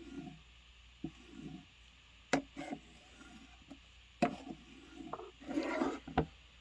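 Knife being sharpened by hand on a sharpener: soft scraping strokes of the blade, broken by several sharp knocks, the loudest about two and a half and four seconds in, with a longer, louder scrape near the end.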